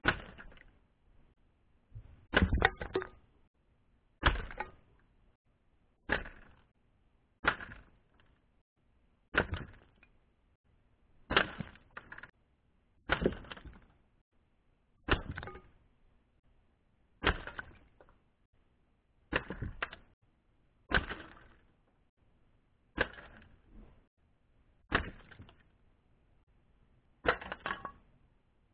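Air gun fired repeatedly, about fifteen sharp cracks roughly every one and a half to two seconds, a few coming in quick pairs. Each shot is followed by a short clatter as wooden and plastic targets are hit and pieces fall.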